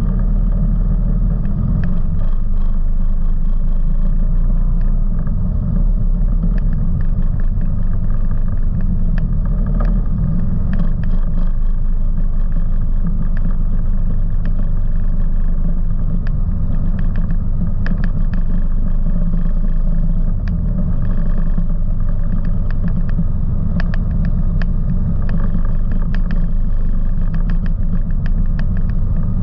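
Off-road vehicle engine running steadily at low riding speed, with scattered clicks and ticks from gravel under the tyres.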